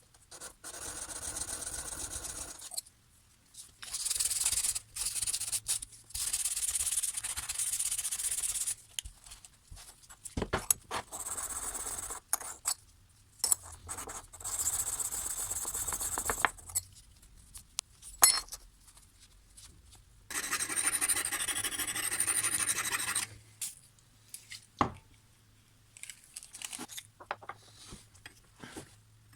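Rubbing strokes of an abrasive on the steel parts of a stripped-down pair of Felco No. 2 secateurs, as they are cleaned up or sharpened. The strokes come in spells of a second or three with short pauses between them, and a few sharp clicks of metal being handled.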